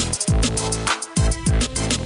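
Electronic background music with a fast drum-machine beat and deep bass notes that slide down in pitch.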